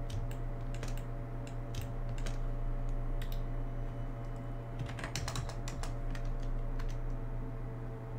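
Computer keyboard keystrokes: scattered single taps, then a quick run of keys about five seconds in, over a steady electrical hum.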